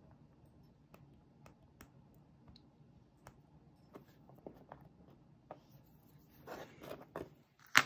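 Faint, scattered clicks and scratches of a craft knife blade picking copper foil off a small glass piece, with a few louder scraping sounds near the end and one sharp tap just before it finishes.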